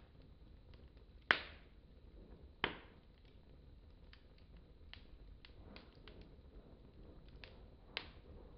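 Wood fire in a fireplace crackling, with three loud sharp pops (about a second in, near three seconds, and near the end) among many fainter crackles.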